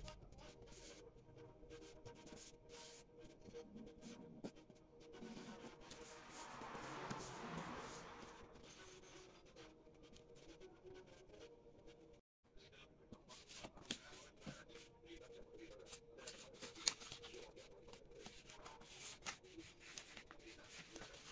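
Faint rustling and crinkling of a sheet of paper being folded and creased by hand, with small scattered clicks as the folds are pressed down.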